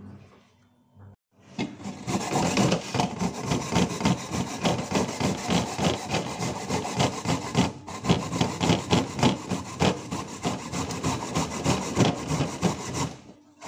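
Fresh coconut being grated by hand on a metal grater: rapid, rhythmic rasping strokes, about three a second. They start about a second and a half in, break off briefly about halfway, and stop just before the end.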